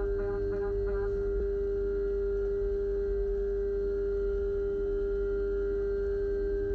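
End mill in a Haas VF-2SS CNC milling machine cutting 6061 aluminium under flood coolant: one steady, pure, mid-pitched singing tone over a low rumble. A pulsing set of higher tones stops about a second in.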